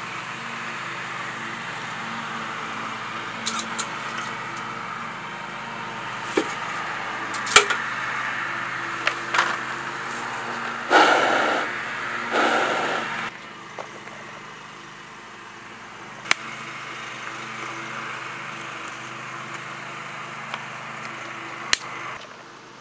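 Small wood-and-paper fire being lit in the base of a Kelly Kettle storm kettle: a steady hiss with scattered sharp crackles and snaps. About halfway through, two long breaths are blown into the fire base to get it going.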